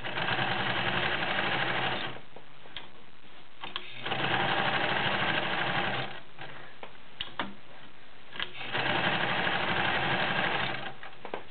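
New Home/Janome model 900 sewing machine stitching through ten layers of cotton in three runs of about two seconds each. There are short pauses between the runs, with a few clicks in them.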